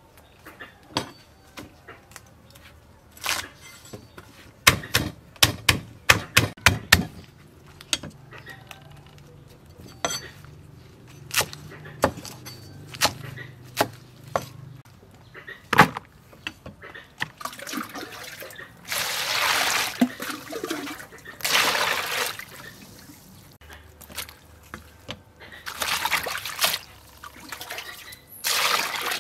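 Knife chopping water spinach stems on a thick wooden chopping block: scattered sharp knocks, with a quick run of them about five seconds in. Later, water sloshes and splashes as the cut greens are washed by hand in a plastic basin.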